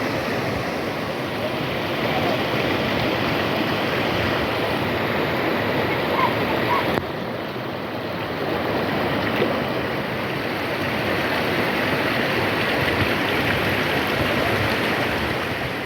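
Steady rushing water of a stream.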